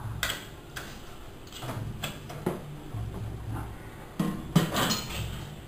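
A series of irregular clicks and knocks over a low rumble, the loudest knock about four and a half seconds in.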